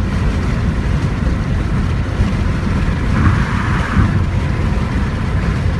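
Car engine running with a continuous, uneven low rumble, and a brief hiss about three seconds in. The owner takes the sound for signs of a bad alternator and bad spark plugs.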